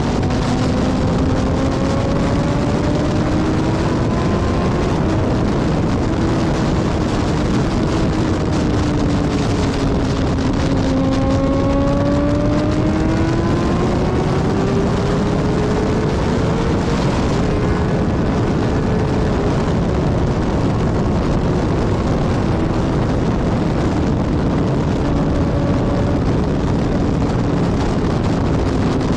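Strong wind: a loud, steady rush with a howling tone that slowly rises and falls in pitch.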